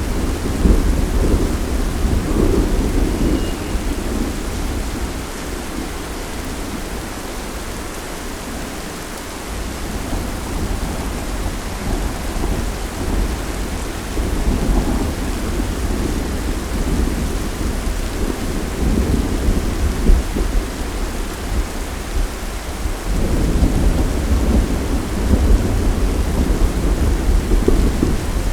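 Thunderstorm: steady rain with thunder rumbling underneath, the rumble easing off about a third of the way in and swelling again near the end.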